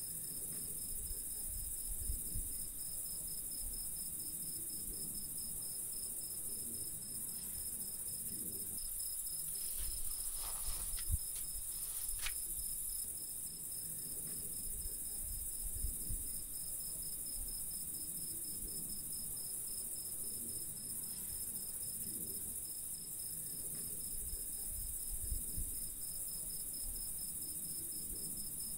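Night-time chorus of crickets and bush-crickets: a steady high-pitched trilling with a fast, even pulse throughout. A few soft low thumps break in now and then.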